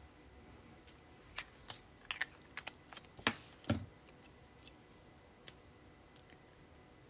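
Hands handling a narrow paper strip on a craft mat: a scatter of small clicks and paper taps from about one to four seconds in, loudest as two taps just after three seconds, the second with a soft thud, then a few faint ticks.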